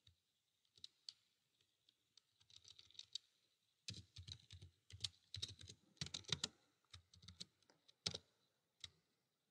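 Faint computer keyboard typing: a few single keystrokes, then a quick run of keys from about four seconds in, tailing off into scattered taps near the end.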